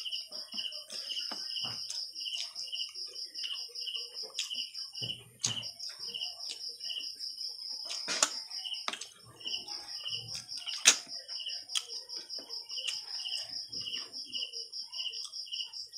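Night insects calling without a break: a steady high pulsing trill that pauses briefly twice, over a slower, evenly spaced chirp of about two or three a second. A few sharp clicks and clinks cut in, the loudest about eleven seconds in.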